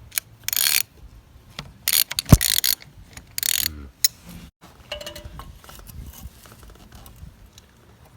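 A ratchet spanner clicking in three short bursts, with one sharp, loud metallic knock in the middle of the second burst. It is tightening the slack handbrake band adjuster on a Zetor 6711 tractor. Fainter scattered clicks of tool on metal follow.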